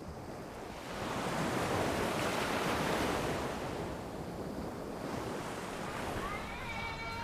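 Sea surf washing onto a beach: a wave's rush swells about a second in, then ebbs away.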